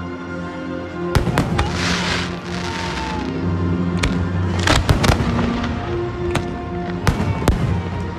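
Aerial fireworks bursting with a string of sharp bangs, about one a second, several close together around five seconds in, and a short hiss about two seconds in. Music plays underneath.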